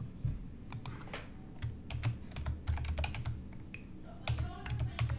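Typing on a computer keyboard: quick, irregular key clicks, with dull low thumps coming through in clusters along with the keystrokes.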